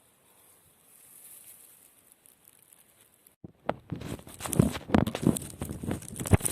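Dry grass, leaves and twigs crunching and rustling in a quick irregular run that starts suddenly about three and a half seconds in, after a faint hiss.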